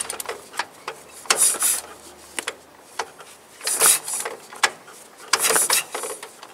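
Ural motorcycle's flat-twin engine being kick-started: three kicks about two seconds apart, each a short mechanical clatter of the kick-start gear as the engine turns over. It does not fire.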